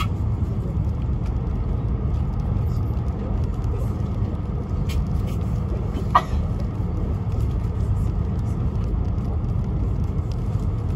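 Steady low rumble of a Tohoku Shinkansen Hayabusa train running at speed, heard from inside the passenger cabin, with one short sharp click about six seconds in.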